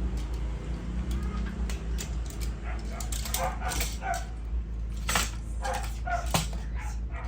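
Clicks and knocks of a die-cast metal and plastic toy robot's parts being twisted and snapped into place during its transformation, the sharpest clicks coming about five and six seconds in. Short high-pitched yelps or whimpers sound in the background.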